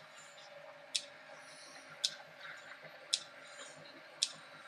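Sharp, single ticks at a steady, even pace, about one a second, over a faint steady hum.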